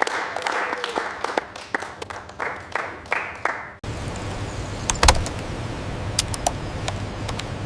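A small group clapping and applauding for a few seconds, then cut off abruptly. A steady low rumble follows, with a few sharp clicks.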